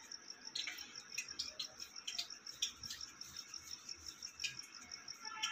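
Light scattered clicks and taps from dough balls being rolled by hand and set down on a glass plate, under a faint, steady, high-pitched chirp that pulses about five times a second.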